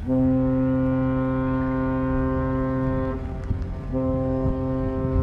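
The P&O cruise ship Britannia's horn sounding as she leaves port: one long, deep blast of about three seconds, then after a short break a second blast begins.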